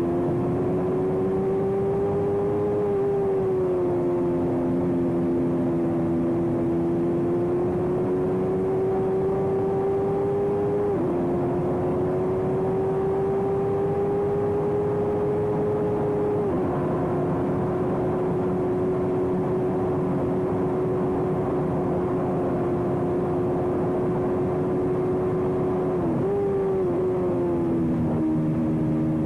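Racing motorcycle engine running continuously at a steady high pitch. The pitch creeps slowly up and then drops suddenly a few times, over a rushing noise.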